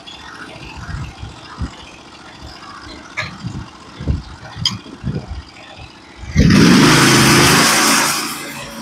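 Norwood HD36v2 bandsaw mill's engine idling, with irregular low knocks from the carriage and head being worked. About six seconds in, the engine is throttled up to cutting speed with the blade running, loud, easing off near the end.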